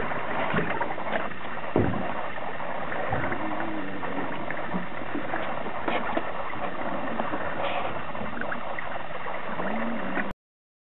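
Boat under way on the water: a steady rush of noise with a few knocks.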